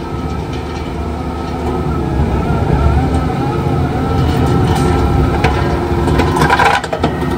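Skid-steer running under load while its hydraulic grinding rotor head chews through stumps, roots and rocky soil; it gets louder about two seconds in, with a burst of clattering near the end as the rotor hits harder material.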